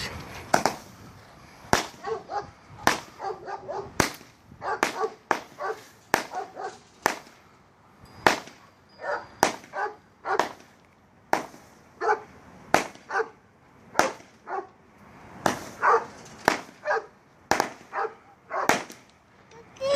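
A 200-gram, 25-shot consumer fireworks cake firing its comet and mine shots one after another, a sharp pop every half second to a second. A dog barks between the shots.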